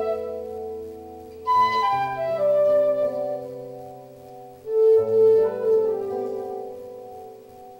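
Live band playing an instrumental passage without vocals: sustained chords that change about one and a half seconds in and again about five seconds in.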